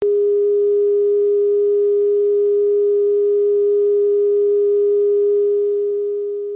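Steady pure test tone at one low-middle pitch, held unchanging and beginning to fade away near the end, as broadcast on air before a radio station's opening announcement.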